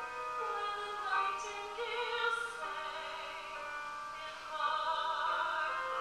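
A woman singing a slow ballad into a microphone, in long held notes that step from one pitch to the next.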